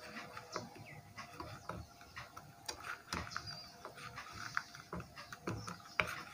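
Faint, irregular small clicks and ticks from soldering a wire onto the solder pads of an inverter's driver circuit board, over a faint steady hum.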